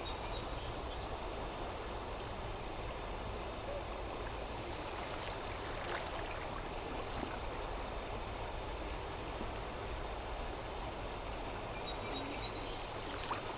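Steady rushing of the North Thompson River running high in spring flood.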